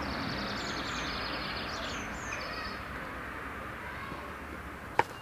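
Outdoor ambience: a steady background hiss with a few high bird chirps about two seconds in, and one sharp knock near the end.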